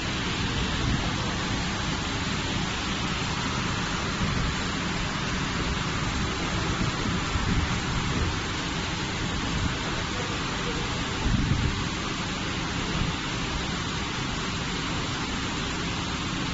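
Automated shrink-wrap packing machine and its heat-shrink tunnel running: a steady hiss with a low rumble underneath that swells briefly now and then.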